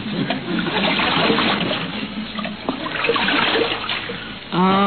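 Radio sound effect of water splashing and trickling as a canoe is paddled away from a dock, easing off near the end.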